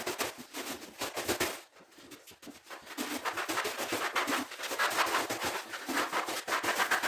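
Plastic bag crinkling and rustling in rapid crackles as it is pressed and dabbed to apply decorative plaster, with a quieter pause of about a second and a half in the middle.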